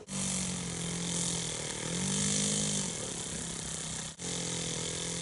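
Small two-stroke engine of a radio-controlled model aircraft running at high revs, its buzz rising in pitch about two seconds in and falling again about a second later as the plane passes. The sound breaks off for an instant about four seconds in, then the steady buzz resumes.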